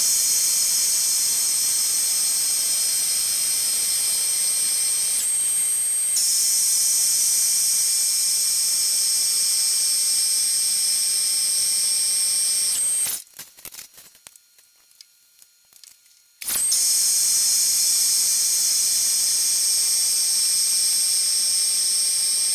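Metal lathe taking a turning pass on a 4140 steel bar with an insert tool: a steady hiss of the cut with a high, steady whine. It drops to near silence for about three seconds just after the middle, then the same sound starts again.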